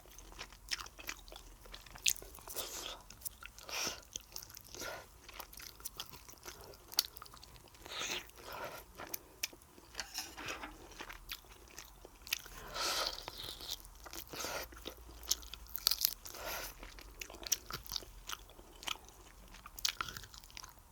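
A person chewing and eating food heard close up: irregular mouth clicks and short smacking bursts through the whole stretch.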